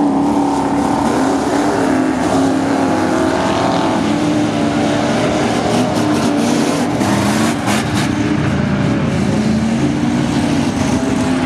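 V8 dirt-track race car engines running and revving as several cars lap the oval, their pitch rising and falling.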